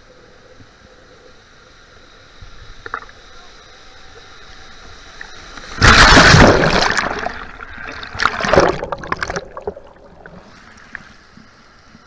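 Seawater surging over a camera held in the surf: a loud rush of churning water about six seconds in as a wave washes over it and it goes under, then a second, shorter splash about two seconds later. Before and after, a steady low wash of breaking surf.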